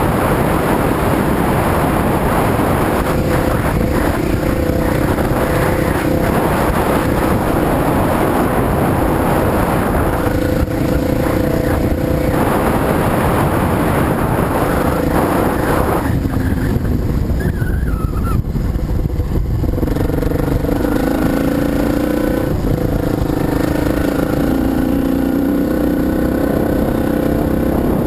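Dirt bike engine running as the bike rides along a rough dirt track. The engine note drifts up and down with the throttle, under heavy wind and rumble on the microphone.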